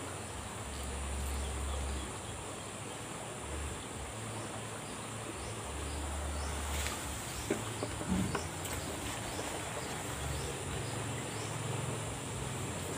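Steady high-pitched insect chirring, with patches of low rumble on the microphone and a few faint clicks about halfway through.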